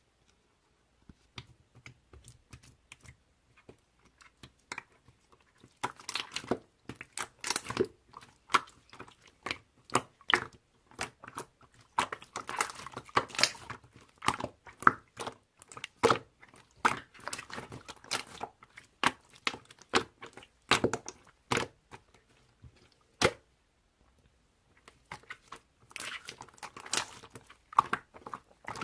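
Close, irregular crackling and crunching in clusters of sharp clicks, with a short lull near the end.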